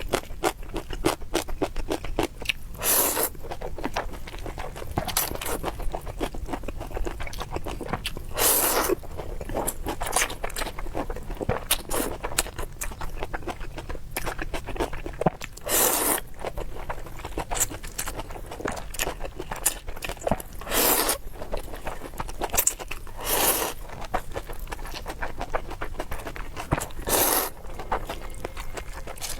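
Close-miked eating sounds: chewing with many small wet mouth clicks, broken every few seconds by a louder, short noisy burst, six or so in all.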